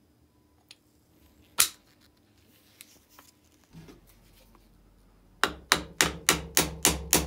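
Hammer blows on the steel pin of a wooden crank handle, fixing it back onto a grater's crank arm: one sharp blow, then a quick, even run of seven blows, about three a second.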